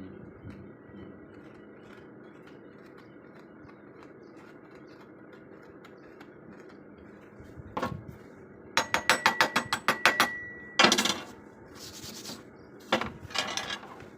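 Hand tool working on steel: a quick run of sharp taps, then several scraping strokes.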